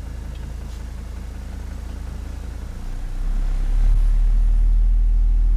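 Two 24-inch Sundown Audio ZV.5 subwoofers in one large ported box playing a 10–60 Hz bass test sweep: a deep low tone with overtones that gets much louder about three to four seconds in.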